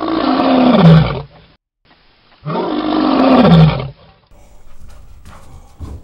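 Large shaggy dog giving two long, deep, rough calls, each about a second and a half and falling in pitch.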